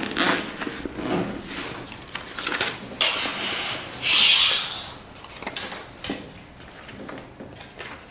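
Clothing rustling and small knocks from hands moving on trouser fabric at a table: an irregular string of soft clicks and rustles, with a longer hissing rustle about four seconds in.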